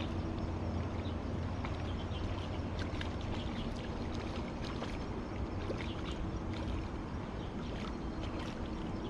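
Shallow river water running steadily, with scattered small splashes and ticks as a hooked fish thrashes at the surface while being played on a long pole rod. A steady low hum runs underneath.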